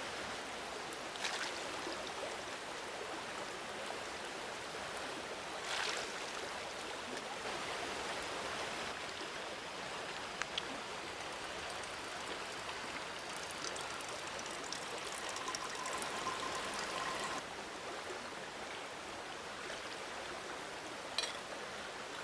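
Steady rush of a mountain stream's running water, with a few short sharp ticks over it.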